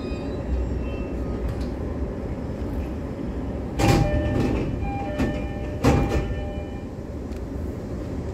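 Inside a stopped E531-series commuter train, steady low rumble, then the doors slide open about four seconds in with a sharp thud and a chime. A second thud comes about two seconds later.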